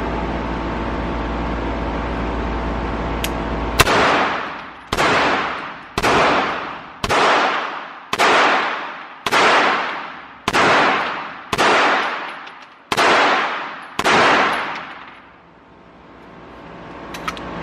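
Ten 9mm shots from a Beretta M9A3 pistol fired at an even pace of about one a second, each followed by a long echoing decay off the walls of an indoor range. A steady hum comes before the first shot, about four seconds in.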